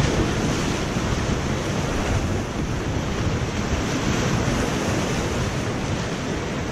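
Whitewater rapids rushing and splashing around a kayak, a steady loud roar of churning river water, with wind buffeting the microphone.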